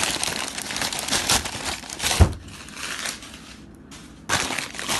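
Plastic packaging crinkling and crackling as it is handled and unwrapped, with a sharp knock about two seconds in. It eases off briefly near the end, then the crinkling starts again.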